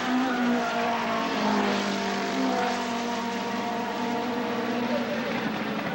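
Engines of small saloon race cars running at high revs on the circuit, more than one engine note at once, their pitch shifting a little as they change speed.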